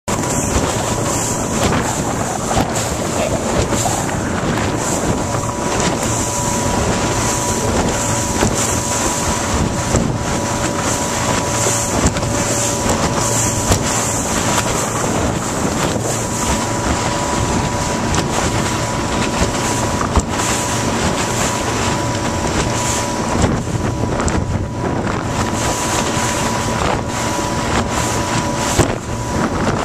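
Motorboat under way, its engine running steadily under heavy wind buffeting the microphone and the rush of water past the hull.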